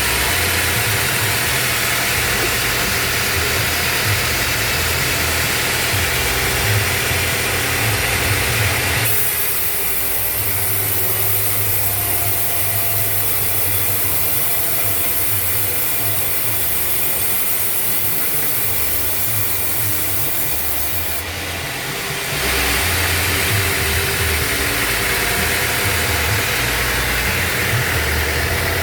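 Band sawmill running, its blade cutting through wood over a steady motor hum. The sound changes abruptly about a third of the way in and changes back about three-quarters of the way through.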